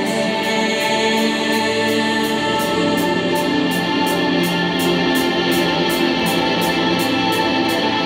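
Live rock band playing the song: sustained, layered electric guitar chords over drums, with a cymbal struck steadily about four times a second.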